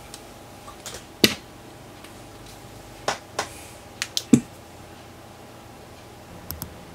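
Scattered clicks and knocks from a metal-cased test instrument being handled and turned onto its side, the loudest a dull knock about four seconds in, under a faint steady tone.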